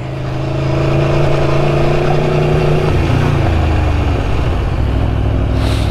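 Motorcycle engine running under an even rush of wind noise. Its pitch sinks from about halfway through as the bike slows at the top of the climb.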